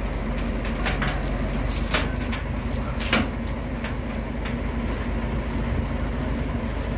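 Heavy steel lifting chains clinking and clanking as they are handled and hooked around a dozer track frame, several sharp clanks with the loudest about three seconds in, over a truck engine running steadily.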